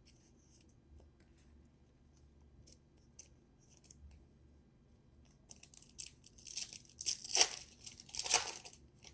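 Foil trading-card pack wrapper being torn open and crinkled. Faint small clicks of cards being handled come first; the tearing and crinkling start about five seconds in and build to two loudest rips near the end.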